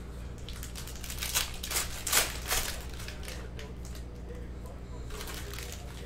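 Foil and plastic trading-card pack wrappers crinkling as packs are picked up and handled: a run of sharp crackles in the first few seconds, then a shorter one near the end.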